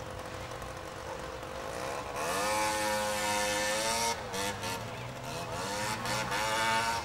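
Moped engine coming closer and passing by: its pitch climbs about two seconds in, dips and rises again with the throttle, and is loudest near the end.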